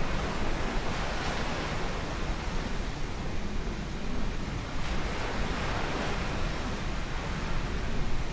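Boeing 777's twin turbofan engines heard as a steady jet roar during a takeoff, swelling and easing slightly, mixed with wind buffeting the microphone.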